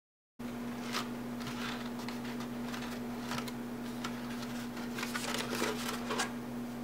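Stiff 65 lb card stock paper rose being handled and turned over: scattered rustles and crinkles of the paper petals, over a steady low hum.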